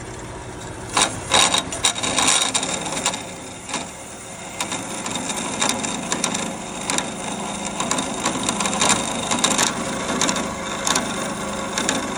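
Irregular clicks, knocks and rattles of metal work at a small metal-cutting bandsaw fitted with a new 1/4-inch steel plate table. The knocks are densest in the first few seconds, and a steady low hum joins about four seconds in.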